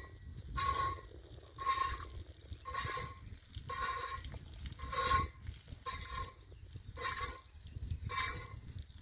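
Milk squirting from a cow's teat into a container under one-handed hand milking, in a steady rhythm of about one squirt a second, each squirt hissing with a faint ring.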